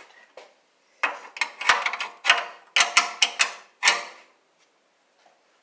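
Metal hand tools clattering and clinking: a quick run of about ten sharp knocks, some with a short metallic ring, over about three seconds.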